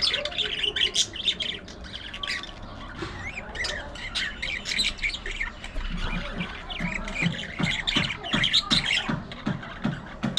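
A flock of budgerigars chattering, with many short overlapping chirps, squawks and warbles. In the second half a low sound repeats a few times a second underneath.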